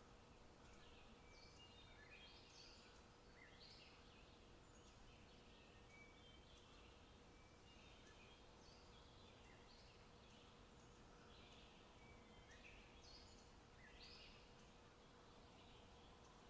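Faint forest birdsong: several small birds chirping and trilling in short, overlapping high phrases, over a quiet hiss and a faint steady hum.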